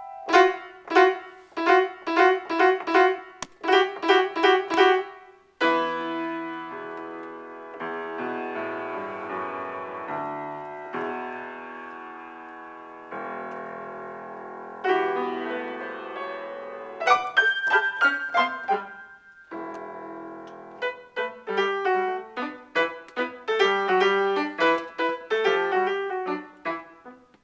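Solo piano improvisation. Quick repeated chords open it, then sustained chords are held and left to ring, and from about two-thirds of the way in quick repeated notes and chords return.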